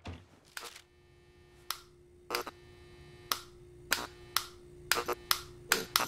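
A wall light switch flicked on and off over and over, each flick a sharp click, sparse at first and coming faster toward the end, over a faint steady hum.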